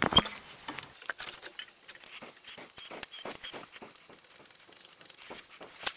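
Irregular small metallic clicks and taps of a wrench and bolt as the front brake hose bracket of a Honda Civic is screwed back onto the strut.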